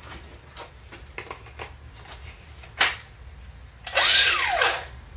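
Angle grinder briefly triggered about four seconds in, its whine rising and then falling, after a few light handling clicks and one sharp click.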